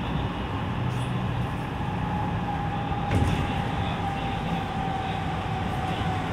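Running noise heard inside a JR West 207 series electric train: a steady rumble of wheels on rail, with a thin whine from its VVVF inverter and traction motors that slides slowly down in pitch. A single sharp knock comes about three seconds in.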